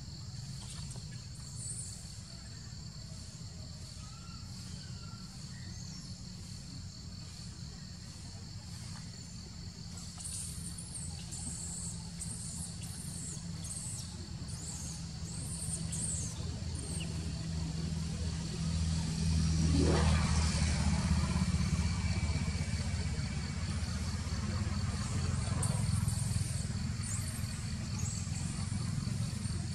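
Low engine rumble of a motor vehicle that grows louder and peaks about two-thirds of the way through, with a rising whine at its loudest. Scattered high chirps come and go in the middle, over a steady high-pitched whine.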